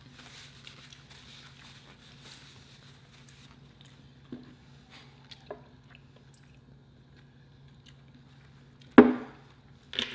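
Quiet eating sounds at the table: faint chewing and a few small clicks over a steady low hum, with one sharp, louder sound about nine seconds in.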